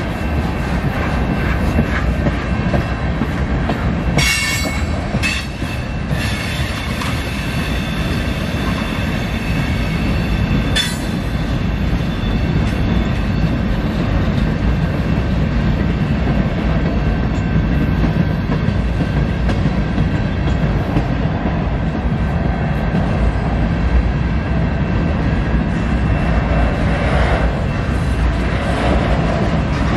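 Freight train cars rolling past steadily, with brief high-pitched wheel squeals about four seconds in and again around eleven seconds.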